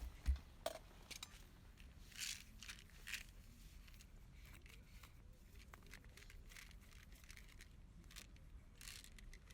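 Quiet handling sounds: a soft thump at the start, then scattered light clicks and a couple of brief rustles, like packaging or small objects being handled.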